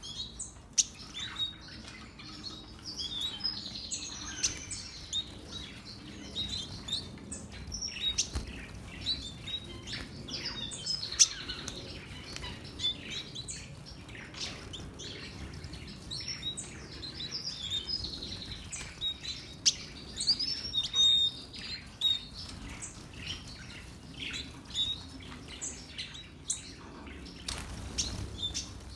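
A colony of red-billed firefinches chirping, with many short, high calls overlapping and a few brief flutters of wings.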